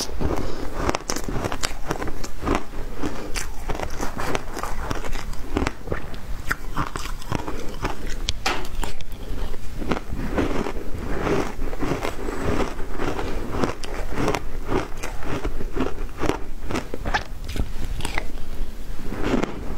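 Shaved ice being bitten and chewed by the spoonful: a continuous run of quick crackling crunches.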